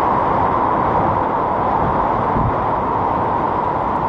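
Hurricane wind and heavy rain, a loud steady rush of noise with wind buffeting the microphone.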